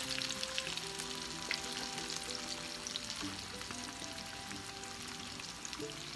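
Battered, flour-coated chicken strips frying in hot grease in a pan: a steady crackling sizzle full of tiny pops. Soft background music plays underneath.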